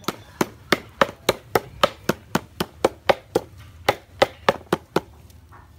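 A short wooden club pounding lemongrass stalks on a wooden chopping block, about four sharp knocks a second, stopping about five seconds in.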